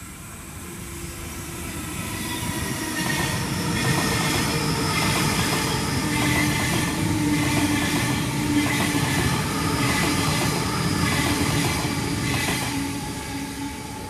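Sydney Trains Waratah (A-set) electric train passing through the station without stopping. The sound swells over the first few seconds, holds loud with a steady whine and the clatter of its wheels on the rails, then fades near the end.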